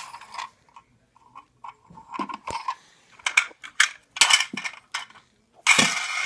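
Plastic Little Tikes toy cars clicking and clattering as they are pushed and set down on a hard floor, with a longer, louder rush of noise near the end.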